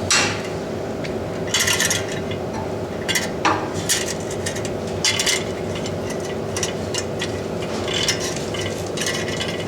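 Metal parts and tools clinking and scraping in short, irregular bursts while the nut and fittings of a water heater's gas control valve are handled, over a steady low hum.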